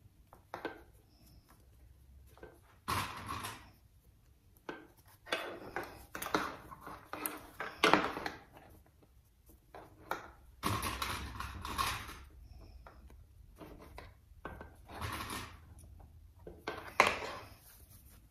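Quilting-cotton fabric rustling as it is folded and handled, with the plastic clicks of sewing clips being put on; irregular short rustles and clicks, the sharpest near the middle and again near the end.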